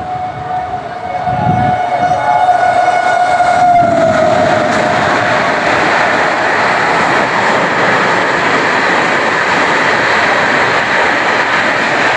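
Gatimaan Express running through a station at speed: its locomotive horn is held and drops in pitch about four seconds in as the train passes, followed by the loud, steady rush of its coaches going by.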